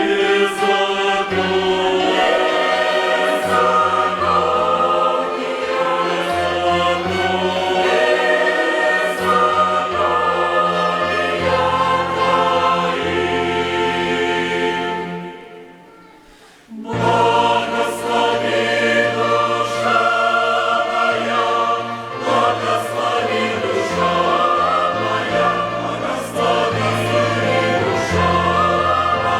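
Church choir singing a hymn with a violin orchestra. The music dies away about fifteen seconds in and comes back a second or so later.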